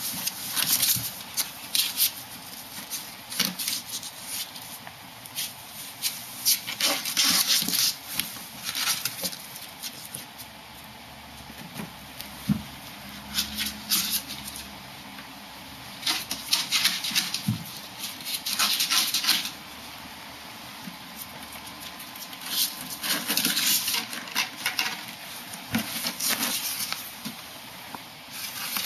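Ferrets scrabbling and tumbling in a cardboard box: bursts of claws scratching and scraping on the cardboard, with a few sharp knocks, coming in fits and starts with short lulls between.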